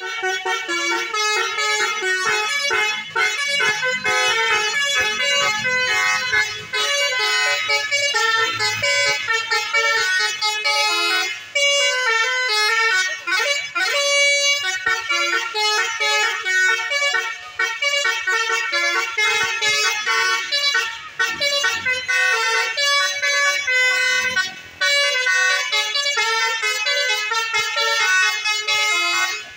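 Bus 'telolet' musical air horns playing a continuous melody of stepping horn notes, with a few brief pauses.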